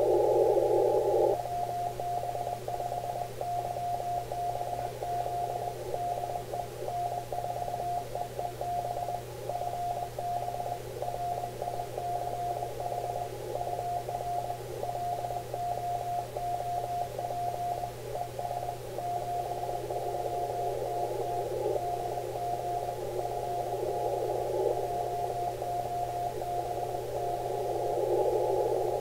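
Morse code (CW) at about 20 words per minute received on an Icom IC-7300 on 40 metres: a single tone of about 700 Hz keyed in dots and dashes over band hiss narrowed by a 500 Hz filter. The hiss is louder for about the first second.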